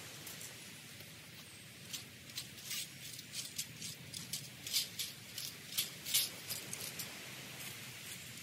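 Dry garden plant material being worked by hand: a run of short, crisp crackles and snaps, irregular and a few a second, starting about two seconds in and easing off near the end.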